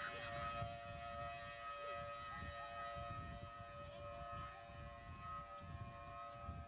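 Outdoor tornado warning sirens sounding a steady, held wail of several tones at once, over low wind rumble on the microphone.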